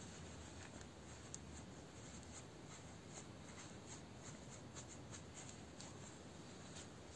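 Faint rustling and scratching of fiberfill stuffing being packed into a crocheted amigurumi with fingers and the back of a crochet hook, with small scattered ticks.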